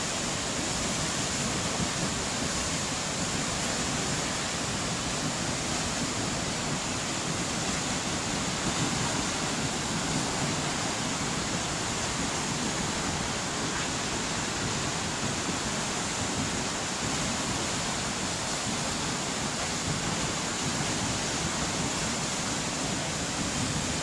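A tall waterfall plunging into its pool close by: a steady, unbroken rush of falling water.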